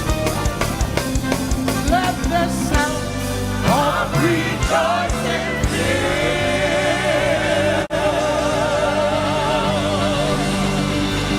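Live gospel praise music: a band with drums playing, then a voice singing a long wavering line with vibrato over held chords from about halfway through.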